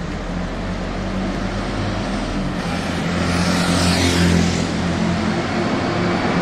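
City street traffic with a heavy motor vehicle's engine running close by. It grows louder and passes about three to four seconds in.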